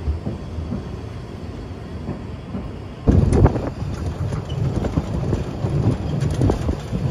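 Narrow-gauge steam train of the Zittau line running, heard from its open-top wagon close to the VII K locomotive: a loud low rumble with scattered knocks and clatter. It starts abruptly about three seconds in, after a quieter stretch of station ambience.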